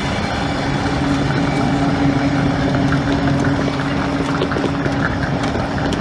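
Passenger train at the platform: a steady low hum from the carriages' machinery over a loud, even rumble, with light clicking near the end.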